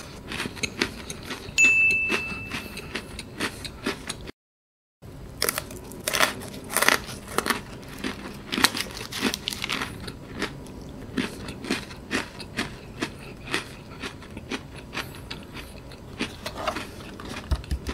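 Close-miked crunching and chewing of Pocky strawberry biscuit sticks: a steady run of sharp, crisp bites and crunches.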